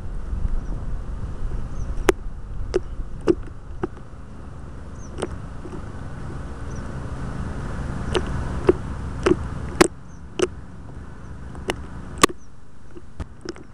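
Low rumble on the RC seaplane's onboard camera microphone, broken by about a dozen sharp clicks and knocks at irregular times. The rumble drops away about ten seconds in, and a few faint high chirps come through.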